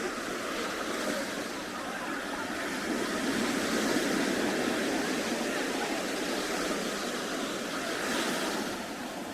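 Ocean surf washing onto the beach, a steady rushing that swells for a couple of seconds around the middle.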